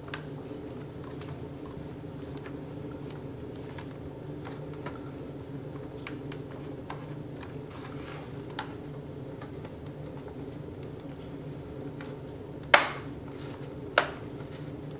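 Scattered light clicks and then two sharp clicks about a second apart near the end, from a laptop's bottom case being handled and pried at, over a steady low hum.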